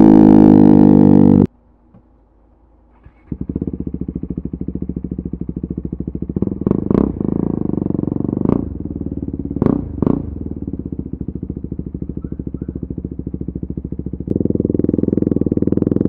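KTM RC 390's single-cylinder engine through an Akrapovic exhaust: running at speed for about a second and a half, then stopping abruptly. After a short quiet gap it starts up and idles with several quick throttle blips, and near the end the revs rise as the bike moves off.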